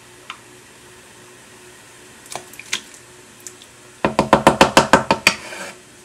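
A quick run of about ten sharp knocks, roughly eight a second, about four seconds in, lasting just over a second. Before it there are only a few faint clicks.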